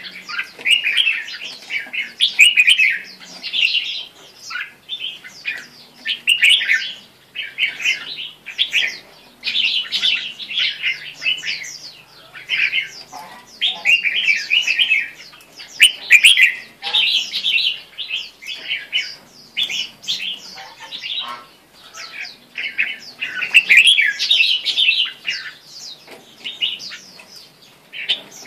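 A caged red-whiskered bulbul singing: quick, chirpy warbled phrases, one after another with short pauses between them.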